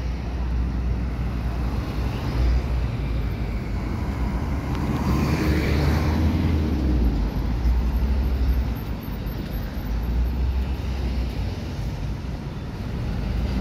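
Street traffic: a vehicle passes close by, its noise swelling and fading about halfway through, over a steady low rumble.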